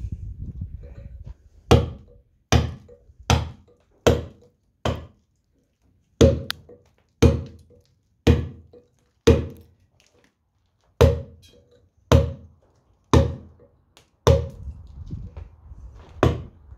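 Round carver's mallet striking a steel chisel into stone while cutting incised lettering: about fifteen sharp blows, roughly one a second with a couple of short pauses, each with a brief ring. A soft rustle comes before the first blow.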